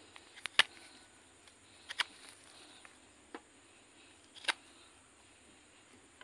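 Pruning shears snipping at a kimeng bonsai: four sharp clicks about a second and a half apart, the third one faint.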